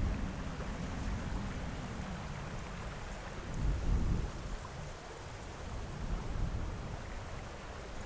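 Flowing creek water rushing faintly under a low, uneven rumble that swells about four seconds in.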